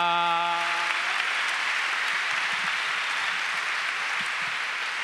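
A man's unaccompanied sung note, the held end of an improvised Basque bertso verse, stops about a second in. Audience applause follows and continues.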